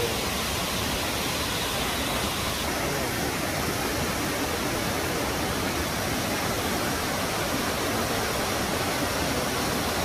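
Steady, even rush of falling water from the Ouzoud waterfalls.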